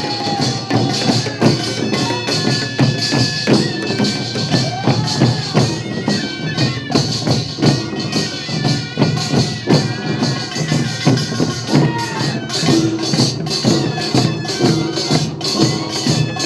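Korean farmers' music (nongak) played live: dense, fast percussion with metallic clashing, and a pitched melody line rising and falling over it.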